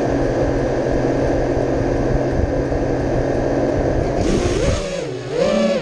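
Armattan Chameleon Ti FPV quadcopter's brushless motors and propellers running steadily at low throttle while it sits armed on the ground. About four seconds in, the throttle comes up and the motor pitch swoops up and down as the quad lifts off.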